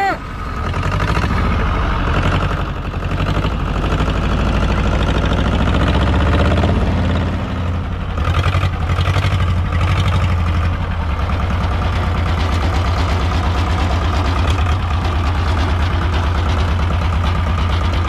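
Engine of a tuk-tuk farm cart running steadily with an even low pulse, just after finally catching following a hard start; its speed shifts briefly about seven or eight seconds in.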